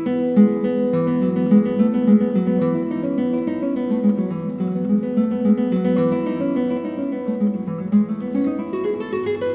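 Background music played on acoustic guitar, plucked notes over a steady accompaniment.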